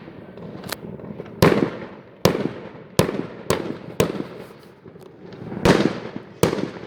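Fireworks bursting overhead: about eight sharp bangs at uneven intervals, each trailing off in a rolling echo.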